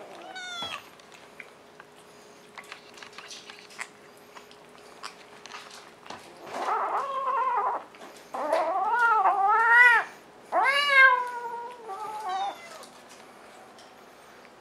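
Cat meowing: a short meow near the start, then after a few quiet seconds a run of long, loud meows whose pitch wavers up and down, loudest about two-thirds of the way through.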